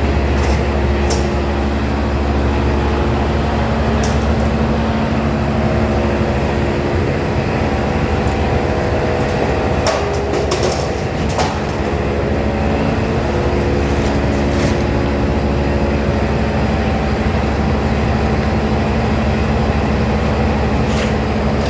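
Large bandsaw sawmill's machinery running steadily: a loud, deep, even hum with a few sharp metallic clicks and knocks now and then.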